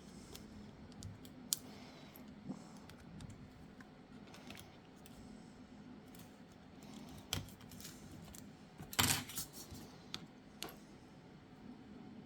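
Scattered small clicks and taps of hand tools and phone parts being handled on a workbench during smartphone reassembly, with a short clatter about nine seconds in, over a faint steady hum.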